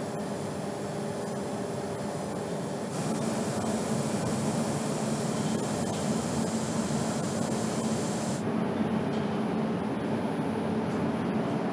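Air-driven gravity-feed paint spray gun hissing as it sprays, over a steady low drone. The hiss cuts off suddenly about eight seconds in.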